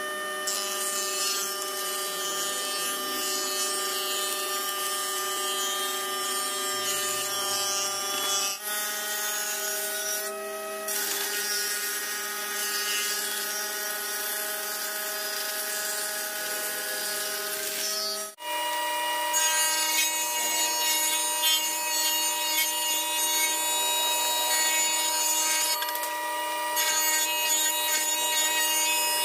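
Electric wood planer running with a steady motor whine and a high hiss as boards are fed through it. The machine sound changes abruptly twice, where its pitch and tone shift.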